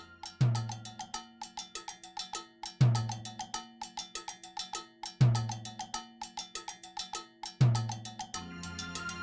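Background music built on percussion: a rapid, even pattern of bright cowbell-like strikes, with a deep bass hit about every two and a half seconds.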